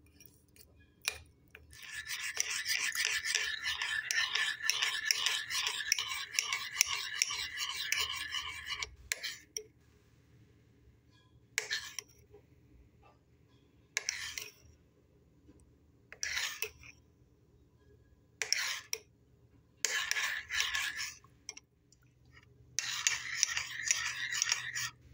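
Metal spoon stirring and scraping around a ceramic bowl, mixing peanut butter, sweetened condensed milk and water into a sauce. It starts with a long stretch of fast scraping, then comes in short bursts a couple of seconds apart, with a longer one near the end.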